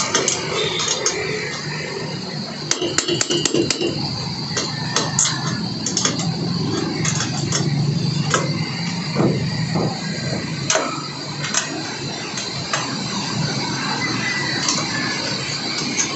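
Light metal clicks and knocks from hand work on a solar panel's aluminium frame and the corrugated metal roof beneath it, over a steady background hum. The clicks come in a quick cluster about three seconds in, then singly every second or two.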